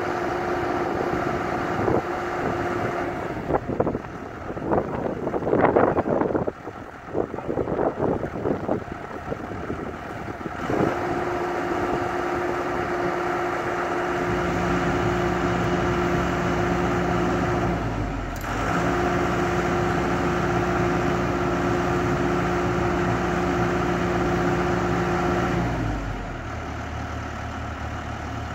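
John Deere 120C excavator running with its pile-driving head on a dock pole: a steady mechanical whine, with several seconds of irregular louder clattering and knocking early on. About halfway a deeper hum joins in, breaks off for a moment, and the whine and hum stop shortly before the end, leaving a lower engine sound.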